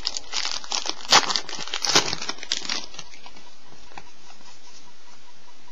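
A trading card pack wrapper crinkling and tearing as it is ripped open, with the sharpest crackles about one and two seconds in, then softer rustling as the cards are pulled out and handled.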